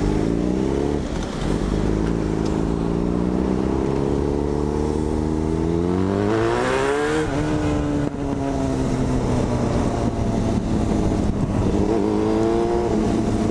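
Yamaha FZ6 inline-four motorcycle with an aftermarket dual carbon exhaust accelerating through the gears: the revs climb, dip at a gear change about a second in, climb for a long stretch to a peak about seven seconds in, drop sharply at the next change and hold steadier, then rise again near the end.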